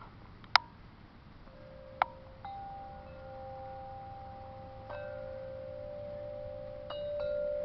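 Wind chimes ringing: several long metal tones struck one after another and left to ring over each other, growing louder near the end, with two sharp clicks in the first two seconds.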